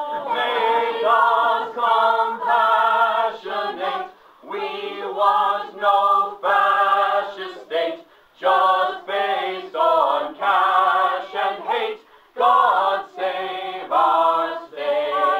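A small group of men and women singing together without accompaniment. The song comes in phrases of a few seconds, with brief breaks between lines.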